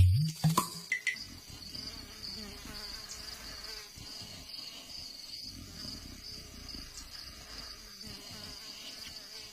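A steady, high-pitched insect trill runs throughout, over a faint background, after a brief loud sound right at the start.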